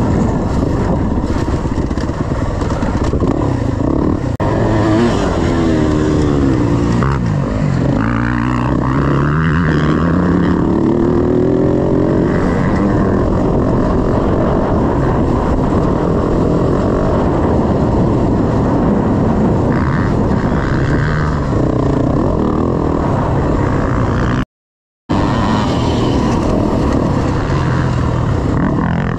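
Dirt bike engine running under a rider, its pitch rising and falling as the throttle is worked, over steady noise from the ride. The sound cuts out for about half a second near the end.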